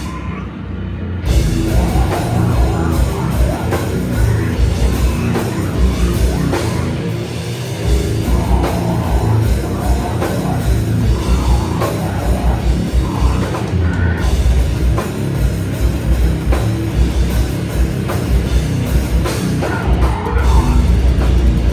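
Slam death metal band playing live: heavily distorted guitars and bass chugging over a pounding drum kit. The band breaks off for about a second at the start, then comes back in at full volume.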